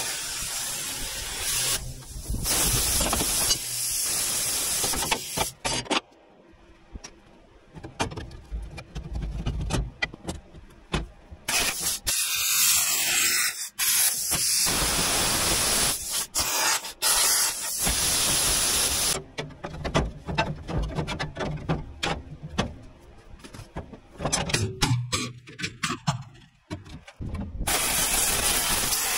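Plasma cutter cutting an opening in a wrecker's truck bed: a loud hiss that starts and stops in several runs with short pauses between cuts.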